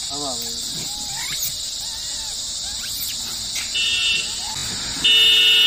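Steady high insect drone, with short rising-and-falling calls from macaques over the first few seconds. A vehicle horn toots faintly and briefly about three and a half seconds in, then sounds a loud, long honk from about five seconds in.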